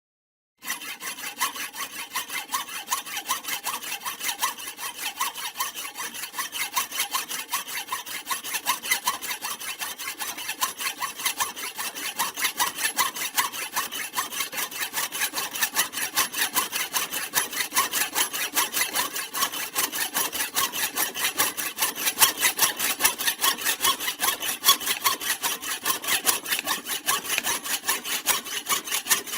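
Hand saw cutting through wood in fast, even back-and-forth strokes, starting after a brief silence at the beginning.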